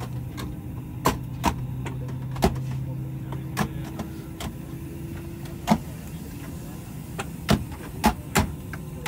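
Airbus A320 cabin at the gate: a steady hum from the aircraft's air and electrical systems, whose lowest hum drops out about four seconds in, under a dozen or so scattered sharp clicks and knocks from around the cabin.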